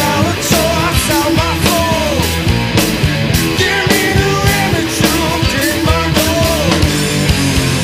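Rock band playing loud, with the drums hitting a steady beat under bass and guitar and a lead melody line over the top.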